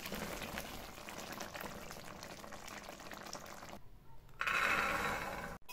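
Pea curry simmering in a pot, a dense crackling bubbling. After a brief break about four seconds in, a cupful of green peas is tipped into an empty steel pot, a louder spill lasting about a second.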